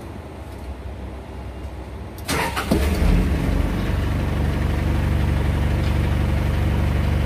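A vehicle engine is cranked on the starter a little over two seconds in. It catches within about a second and settles into a steady idle.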